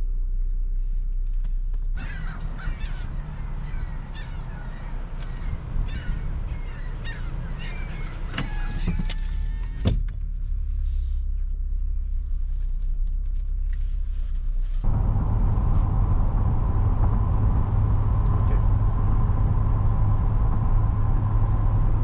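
A car idles with a low rumble while, for several seconds, birds call outside in many short chirping calls. About 15 seconds in, this gives way to steady, louder road and engine noise inside the car's cabin at highway speed.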